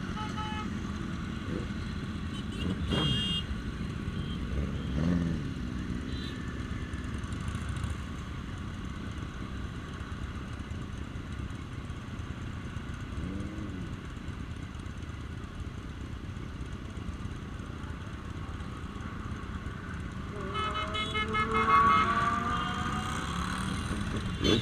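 Road traffic noise with vehicles running by. About 21–22 s in, an engine note rises as a vehicle accelerates past; this is the loudest moment. Short horn beeps come about 3 s in and again with the passing vehicle.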